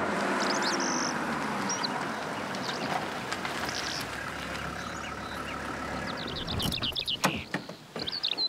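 A vehicle running, its noise slowly fading away, with birds chirping now and then and a quick run of birdsong near the end.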